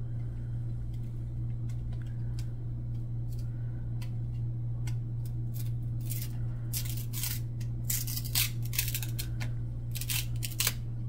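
Cardboard trading cards being slid and peeled apart by hand, slightly stuck together but not ripping: a few light scrapes, then a run of crisp dry rasps in the second half. A steady low hum runs underneath.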